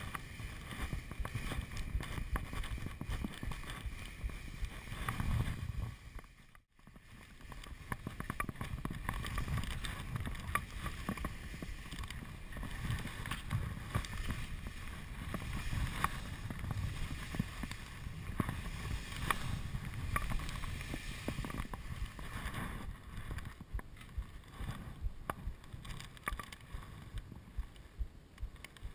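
Skis running fast over snow, a steady hiss with many small scrapes, with wind rumbling on an action camera's microphone. There is a brief dropout about six and a half seconds in.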